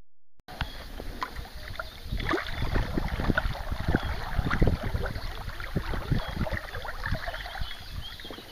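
Kayak on the water: irregular splashes and small knocks from paddling, beginning abruptly about half a second in.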